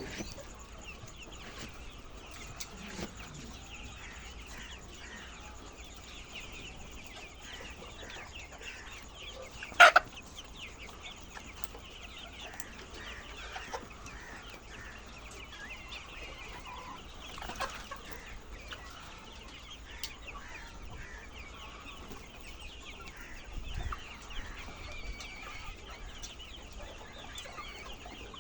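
A flock of laying hens clucking: a steady chatter of many short overlapping calls, with one brief, sharp, loud sound about ten seconds in.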